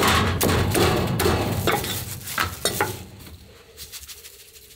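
Meat cleaver chopping a barrel-roasted chicken into pieces on a thick wooden chopping block: rapid, sharp chops, about three or four a second, that stop about three seconds in.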